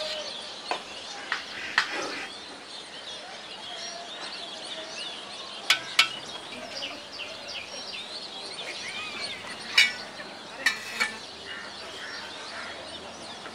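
A metal ladle clinks sharply several times against a steel cooking pot and a plate as curry is spooned out, with a few brief rings. Many small birds chirp steadily in the background.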